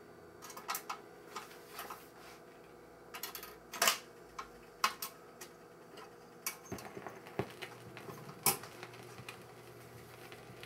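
GE Trimline 500's automatic record changer cycling: a series of irregular mechanical clicks and clunks as the changer works and the tonearm swings over onto the record, with two louder knocks about four and eight and a half seconds in. A faint steady hum runs under it.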